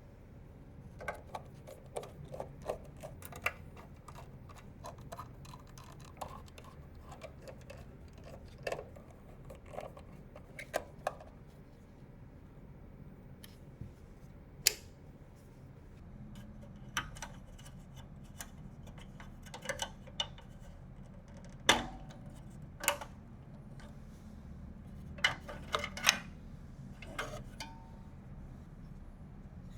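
Irregular small clicks and taps of computer parts being handled and fitted during a PC build, a few sharper knocks among them, over a low steady hum.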